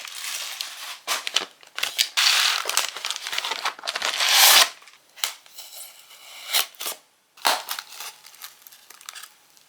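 Packaging being torn open and crinkled by hand, a longer loud stretch of tearing and rustling in the first half, then short scattered rustles and clicks as the contents are dug out.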